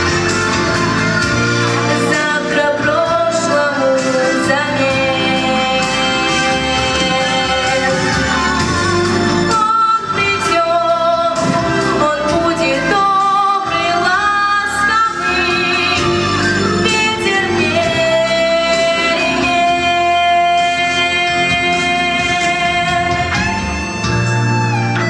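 A girl singing a melodic song with long held notes and vibrato, over a full instrumental backing track.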